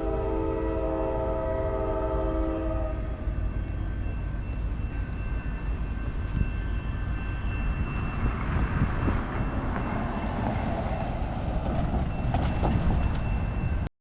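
Train horn sounding one chord of several notes for about three seconds, then the steady rumble of the train running past, with a faint high steady tone over it.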